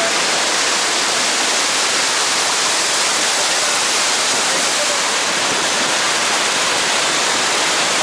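Iguazu Falls: a huge volume of water pouring over the falls into the river below. It makes a loud, steady, even rushing, with little deep rumble.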